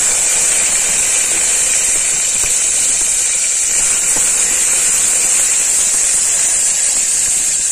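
Chopped tomatoes sizzling steadily in hot oil in an aluminium pressure cooker as they are stirred with a wooden spatula.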